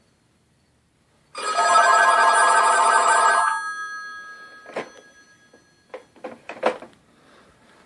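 Rotary telephone's mechanical bell ringing for about two seconds, signalling an incoming call, then the ring dying away. A few short clicks and knocks follow later.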